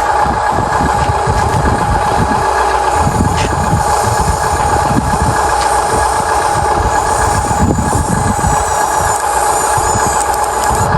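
Huina 1593 remote-control excavator running: a steady whine from its electric motors and gears over uneven low rumbling.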